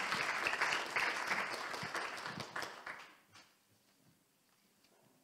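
Congregation applauding, the clapping dying away about three seconds in.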